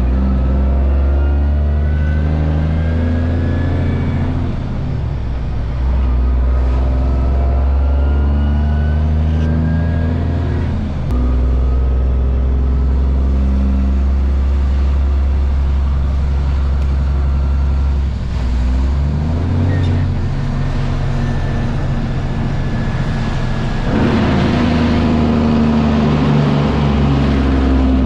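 Cummins ISM diesel of a Freightliner FLD 112 semi tractor heard from inside the cab, pulling under load. The revs climb with a rising whine and drop off at each upshift, several times. It is louder near the end.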